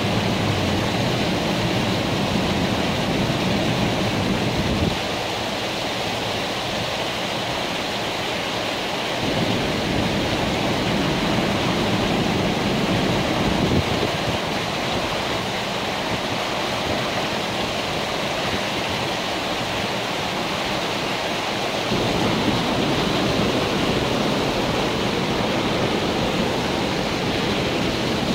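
A fast, high river rushing over a dam wall, almost knee-deep: a steady, loud roar of water. A low rumble comes and goes every few seconds.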